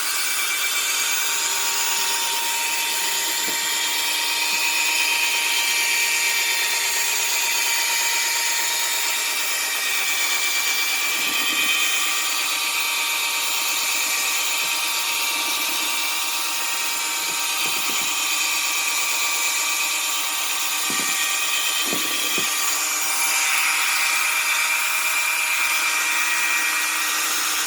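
Electric drill spinning a worn buffing pad to work cutting compound into a plastic headlight lens: a steady whine over a hiss, with a few faint knocks.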